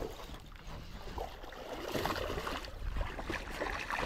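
Irregular splashing and knocking as a hooked bass thrashes at the water surface while it is drawn in to the bank, over a low rumble of wind on the microphone.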